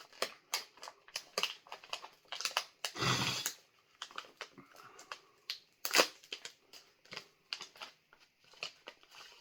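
Crunching from chewing a crisp freeze-dried ice cream sandwich close to the microphone: a rapid, irregular run of sharp crackles. A short, loud, noisy burst comes about three seconds in.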